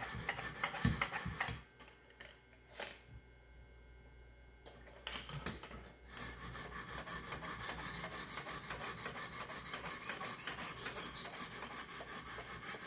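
Light, rapid scrubbing strokes of diamond sharpening stones on a knife edge held in a Wicked Edge Gen 4 Pro guided-rod sharpener, an even, smooth rasp that is the sign of a refining pass once the burr work is done. The strokes stop after about a second and a half, with a single click in the pause, and pick up again about six seconds in as a steady run of roughly three strokes a second.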